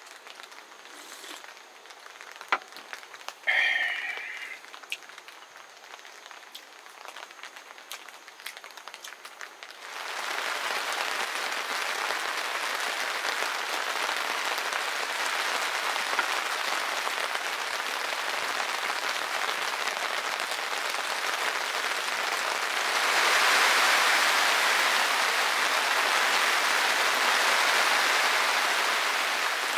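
Steady rain that starts suddenly about ten seconds in and gets louder about two-thirds of the way through. Before it there are scattered light ticks and one short high squeak.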